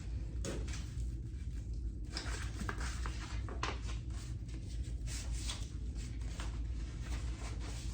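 Sandpaper rubbed by hand over a primed car fender: repeated, irregular scratchy strokes over a steady low hum.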